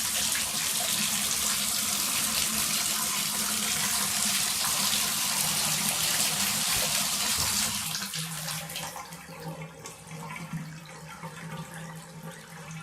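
Bathtub faucet running water hard into the tub, shut off about 8 seconds in; after that the freshly cleared drain gurgles as it takes the water down.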